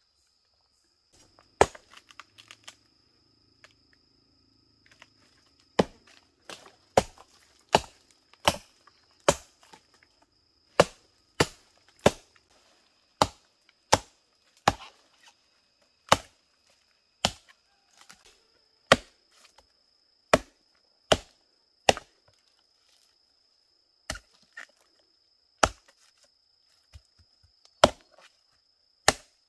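Machete chopping into a rotting palm stump: a series of sharp strikes, a few at first and then a steady run of roughly one to two a second with short pauses. A steady high insect drone sounds behind them.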